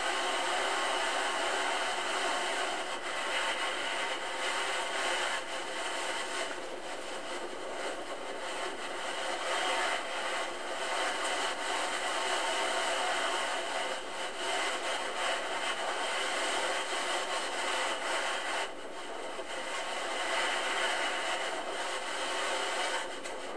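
Steady rushing noise with no speech and no distinct events.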